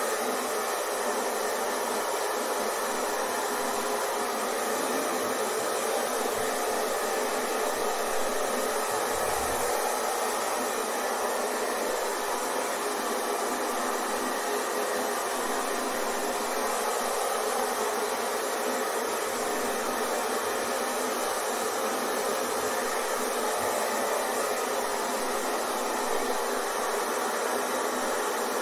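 Hair dryer running steadily: an even, unbroken whooshing hiss of fan and blowing air.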